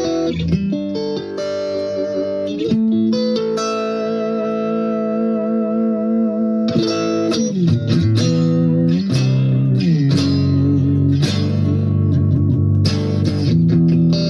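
Electric guitar with single-coil pickups played through a LEKATO R COMP compressor pedal: picked notes and string bends, with one phrase held for about three seconds in the middle.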